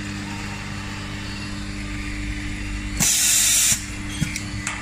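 Steady low machine hum from the insertion press, then about three seconds in a sharp hiss of compressed air venting for under a second, followed by a couple of light clicks.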